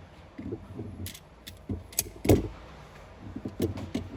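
Handgun and magazine being handled: a scatter of sharp metallic clicks, with one louder knock a little over two seconds in.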